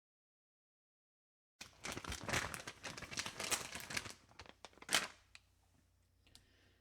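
Crinkling and rustling, like wrapping being crumpled or torn, starting about a second and a half in with a dense crackle, then one sharp crack about five seconds in and a few faint ticks.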